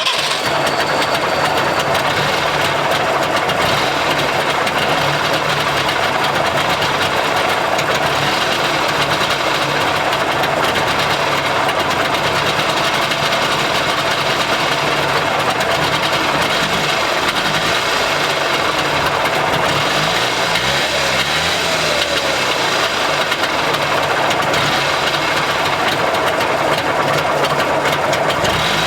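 Trabant 601's air-cooled two-cylinder two-stroke engine idling steadily with the car standing still. Its pitch wavers briefly about twenty seconds in.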